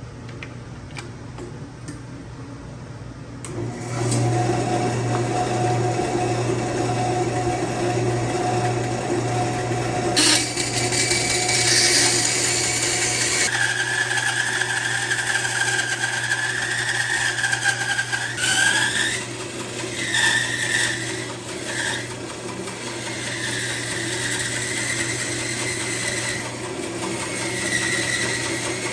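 Electric woodworking saw switches on about three and a half seconds in and runs steadily with a low motor hum; from about ten seconds a harsher cutting noise and a wavering whine join it as wood is fed through the blade.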